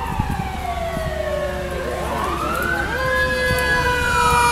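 Fire engine siren in a slow wail: the pitch sinks, climbs again about two seconds in and starts to fall near the end, and it grows louder toward the end. A second steady siren tone joins about three seconds in.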